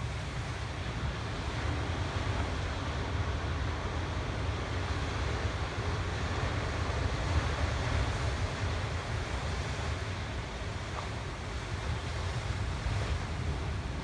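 Ocean surf breaking and washing over rocks, a steady roar that swells a little around the middle, with wind buffeting the microphone as a low rumble.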